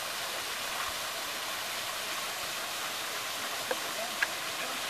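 Steady rush of water from a zoo enclosure's shower spray falling down a rock wall, with two brief sharp clicks near the end.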